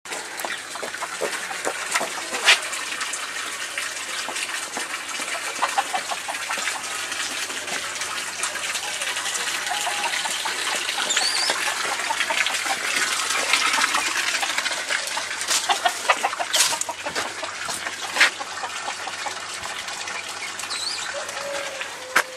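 Chickens clucking from a garden pen, with a few short bird chirps and scattered knocks of footsteps over a steady outdoor hiss.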